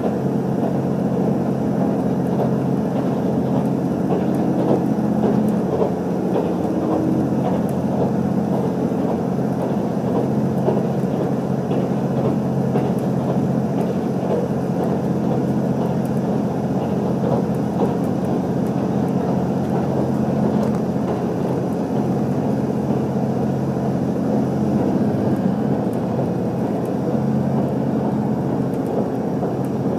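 A JR Central HC85 hybrid diesel railcar running at speed, heard inside the cabin: a steady drone from its diesel generator engine over wheel-on-rail rumble.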